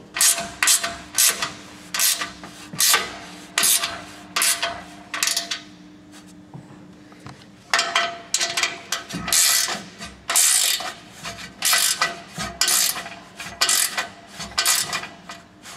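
Hand ratchet wrench tightening the bolts of a Front Runner aluminium roof rack's slats: repeated short rasping strokes, about two a second, with a pause of about two seconds near the middle before the strokes start again.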